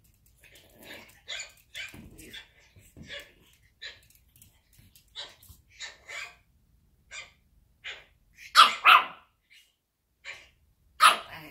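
Pekingese puppy giving a series of short, high yaps, the loudest a quick pair of barks about eight and a half seconds in and another near the end.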